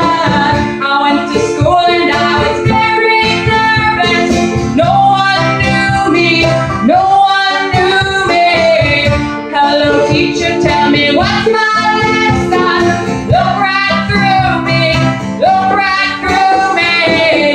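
Acoustic band playing live: plucked banjo and guitar with voices singing in harmony.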